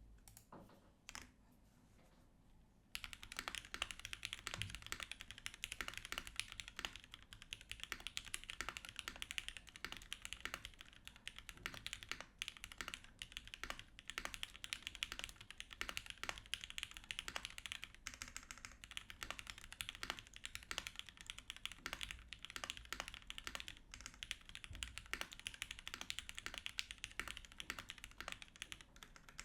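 Typing on a mechanical keyboard with Cherry MX Black linear switches, a polycarbonate case and a top-mounted aluminium plate. After a couple of single clicks, steady rapid keystrokes begin about three seconds in and carry on.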